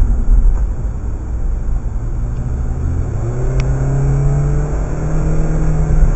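Car engine and tyre road noise heard from inside the cabin. From about three seconds in, an engine note rises steadily as the car picks up speed again after slowing hard.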